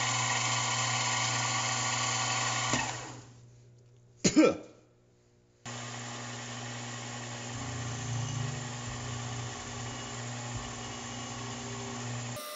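Milling machine spindle running with a face-milling cutter, then winding down about three seconds in; a brief loud clatter follows just after four seconds. From about halfway on, the mill runs steadily again, drilling into a shiny metal block with a long twist drill.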